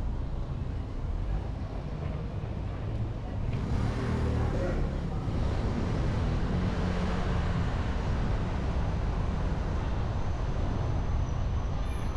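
Steady outdoor street noise with a heavy low rumble, swelling a little about four seconds in.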